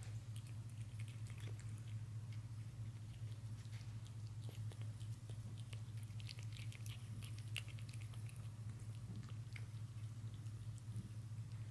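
Domestic cat eating soft raw tuna from a plate: a run of small wet clicks from chewing and licking, busiest in the middle, over a steady low hum.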